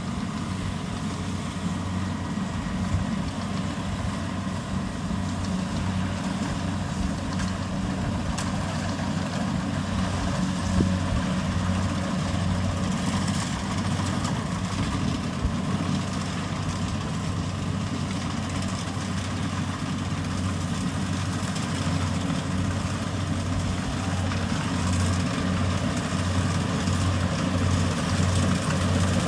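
Kubota DC70 combine harvester's diesel engine running steadily, a constant low hum.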